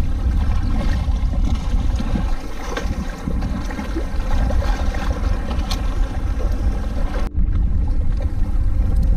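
Wind buffeting the microphone, a steady low rumble with a few faint ticks; the higher hiss drops out abruptly about seven seconds in.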